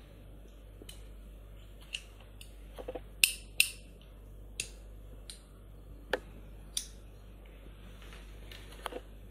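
Metal nail clipper being handled, its lever and pivot parts clicking as they are swung and pressed: scattered sharp metal clicks, the two loudest about a third of a second apart a little after three seconds in.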